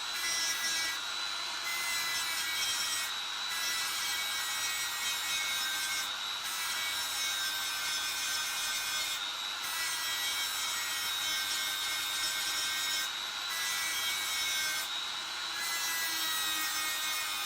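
Straight grinder running with a steady high whine, its abrasive wheel grinding rust off the steel around spot welds of a car body's rear subframe mounting. The grinding hiss drops out briefly about six times while the motor's whine carries on.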